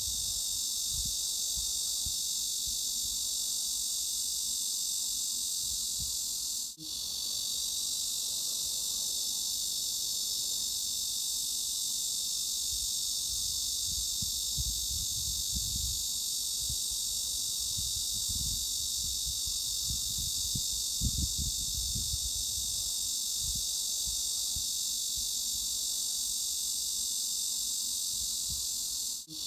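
Cicadas buzzing in a steady, high-pitched drone, a tinnitus-masking sound pitched around 3.5–4 kHz and above. It cuts out for an instant about seven seconds in and again near the end.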